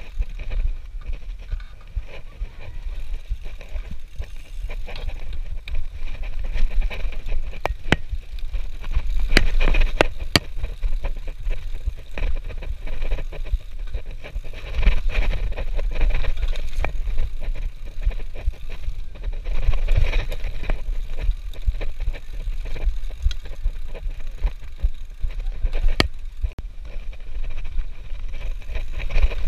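Mountain bike riding down a dirt trail, heard from a camera on the rider: a heavy low rumble of wind buffeting the microphone, with tyre and frame noise and sharp knocks and rattles as the bike goes over bumps.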